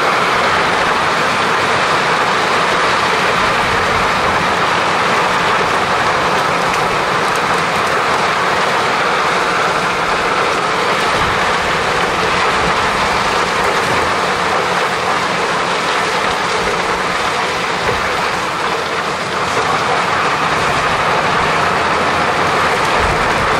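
Heavy diesel machinery running steadily under load: a constant, loud, dense mechanical noise.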